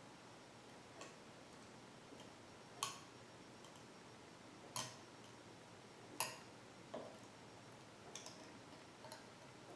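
Needle-nose pliers crimping a turkey mouth call's metal frame down over its latex reeds on a hand jig: about seven short, sharp metal clicks, irregularly spaced a second or two apart.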